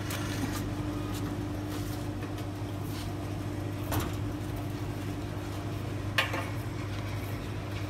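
Petrol station fuel dispenser's pump motor running with a steady hum while fuel flows into a motorcycle tank, with three short clicks about two seconds apart.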